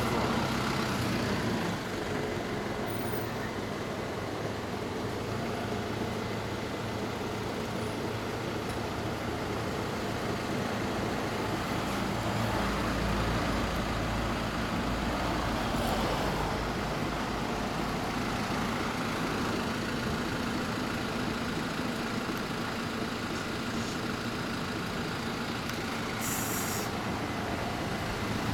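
2013 Kawasaki Z1000's inline-four engine idling steadily through an LCI Parts aftermarket exhaust, with no revving. A deeper low rumble swells for a few seconds around the middle.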